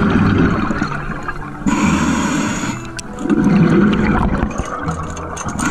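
Scuba diver breathing through a regulator underwater: a hissing inhalation between two rumbling bursts of exhaled bubbles.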